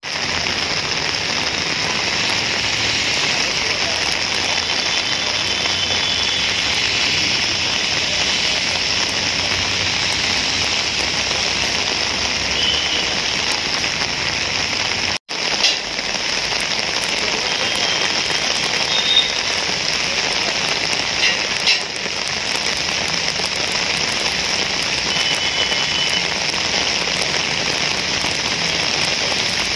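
Heavy rain pouring down steadily, a constant hiss of rain on the ground and surfaces. It breaks off for an instant about halfway through.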